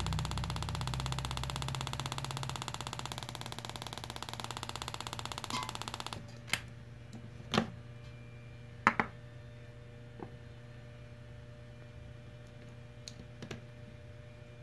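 KTM 1190 Adventure ignition coil firing a spark plug in a test jig: a fast, even crackling buzz of sparks that cuts off suddenly about six seconds in. A few sharp clicks and knocks follow as the coil is handled.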